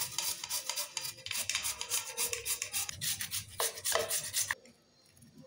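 Peeled raw potato rubbed up and down a flat stainless-steel hand grater: a quick run of rasping strokes, about three or four a second, that stops abruptly about four and a half seconds in.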